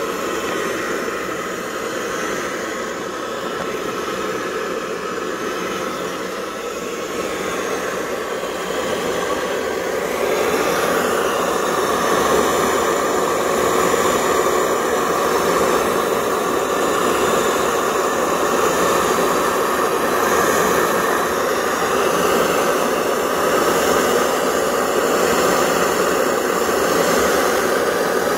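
Pressurized pump-type kerosene stove burner running on waste cooking oil: a steady rushing noise of the vaporized fuel burning, a little louder from about ten seconds in.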